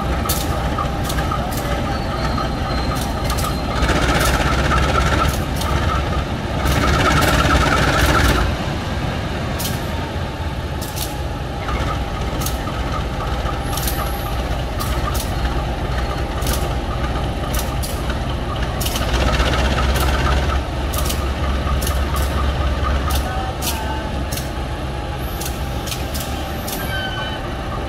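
CC 203 diesel-electric locomotive's V12 diesel engine running at idle, with louder stretches of rushing air about four and seven seconds in and the engine note strengthening around twenty seconds in, during the brake and engine test before departure.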